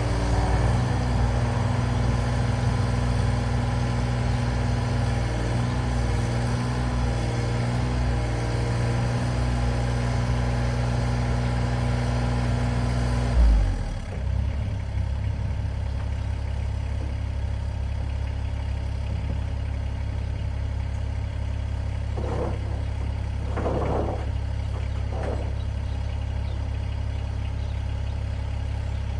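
A diesel excavator engine runs steadily at raised revs under load as the machine is loaded onto a trailer. About halfway through there is a sudden loud thump, and the engine drops to a lower, steady idle. Three short knocks follow a little later.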